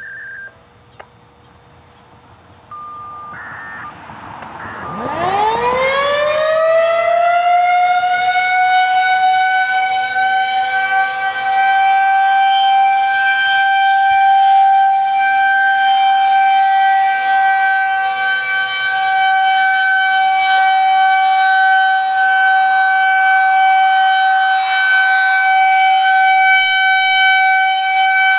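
Brief electronic activation tones from a Motorola handheld radio's speaker in the first few seconds. About five seconds in, a Federal Signal 2001-130 rotating outdoor warning siren winds up in a rising pitch and settles into a steady single-tone wail, the alert signal of its weekly test.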